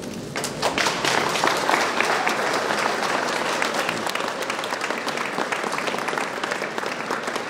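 A large crowd applauding, a dense steady clatter of many hands clapping that breaks out about half a second in.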